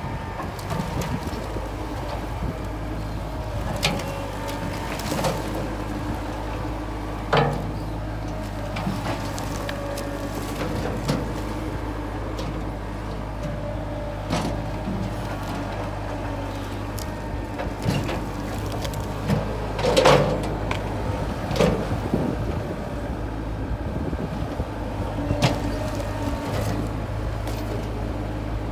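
Compact tractor engine running steadily as the front-end loader works, with scattered knocks and clunks, the loudest about twenty seconds in.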